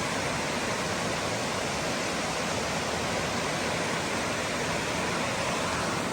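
Waterfall pouring into a deep plunge pool: a steady, even rush of falling water.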